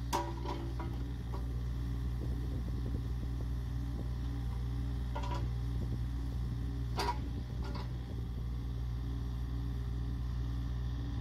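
Takeuchi TB230 mini excavator's Yanmar 1.6 L three-cylinder diesel running steadily as the boom and arm work. A few sharp clanks cut in: near the start, about halfway, and twice soon after.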